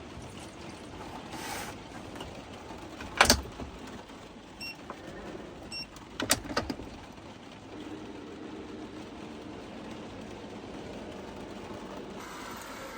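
Keurig coffee maker being loaded and started: a loud click about three seconds in, two short beeps, another few clicks, then a steady machine hum from about eight seconds in as it begins to heat and brew.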